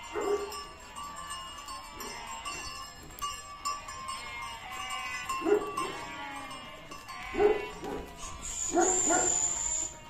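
A flock of sheep bleating, with repeated calls that are loudest about five and a half, seven and a half and nine seconds in. A steady high-pitched tone is heard over the last two seconds.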